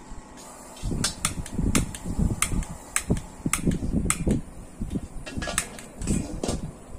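A series of sharp, irregular clicks from a hand-held lighter being sparked at a gas wok burner, over low, uneven rumbling.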